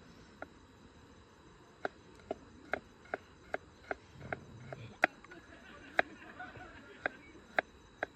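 A series of about a dozen sharp taps or knocks, unevenly spaced roughly half a second apart, a few much louder than the rest.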